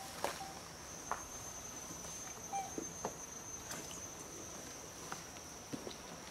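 Steady high-pitched insect drone in forest, with scattered short clicks and ticks over it.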